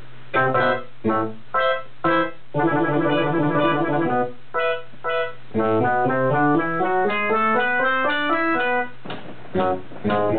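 Keyboard music: a few short stabbed chords, a quick run of notes, then rising stepwise note patterns and more short chords near the end.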